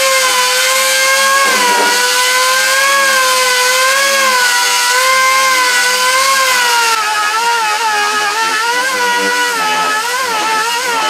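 Air-powered dual-action (D/A) sander running a 3000-grit sanding pad over a car's clear coat for the final sand before buffing: a steady high whine over a hiss of air. The pitch wavers as the tool is pressed and moved, dipping and wobbling more in the last few seconds.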